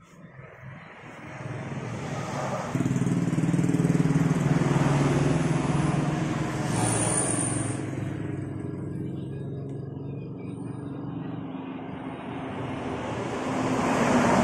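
A motor vehicle engine running nearby. It rises in over the first couple of seconds, holds steady, eases off past the middle and grows louder again near the end. A brief high squeal comes about seven seconds in.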